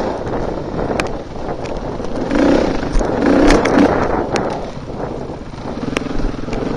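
Off-road dirt bike engine at close range, the throttle opening and easing as the bike climbs a muddy woodland trail, loudest in the middle. Several sharp knocks as the bike bounces over the rough ground.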